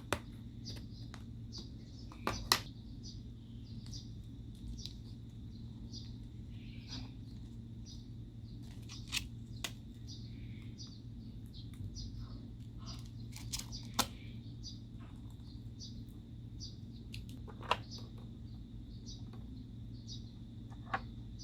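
Slime being squished and mixed by hand, giving many small sticky clicks and pops at irregular intervals, with a few sharper pops, over a low steady hum.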